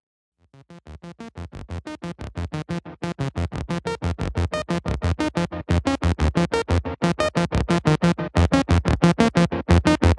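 Intro music: a fast pulsing beat of rapidly repeated notes, several a second, that fades in about half a second in and builds steadily louder.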